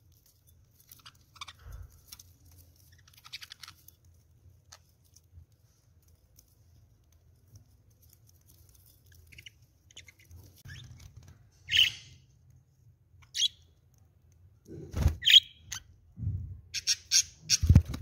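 Pet budgerigars giving scattered short chirps and squawks, a few louder calls in the second half. Several low thumps and rustles come near the end.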